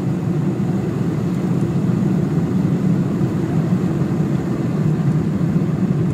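Jet airliner cabin noise during the climb after takeoff: engines and rushing air make a steady low hum with no change in level.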